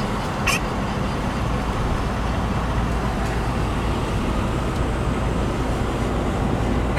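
Steady road and engine noise heard inside a moving car, strongest in the low range, with a short high click about half a second in.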